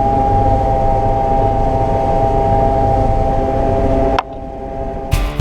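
John Deere 9500 combine running steadily at harvest, a low rumble with a steady whine over it. The sound cuts off suddenly about four seconds in, and guitar music starts near the end.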